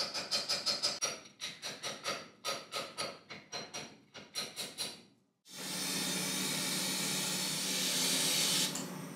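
Hammer tapping a metal punch against a metal projector cover on a steel block: quick ringing metallic taps, about five a second, then slowing to about three a second. After a short pause, a steady hiss of compressed air from a powder-coating spray gun with a low hum, lasting about three seconds and then fading.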